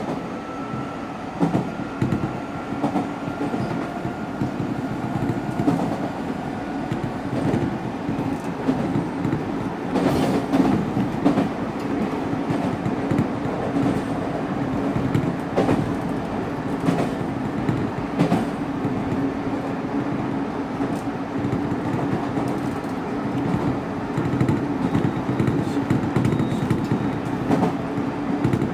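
Nankai 1000 series electric train running, heard from the cab of the lead car. There is a steady rumble of wheels on rail, and sharp clicks as the wheels pass rail joints and points, most of them around the middle.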